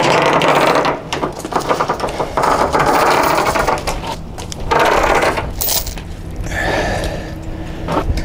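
Anchor chain rattling as it is hauled by hand out of the anchor locker and dropped onto the deck, in three long runs of clattering, lighter near the end.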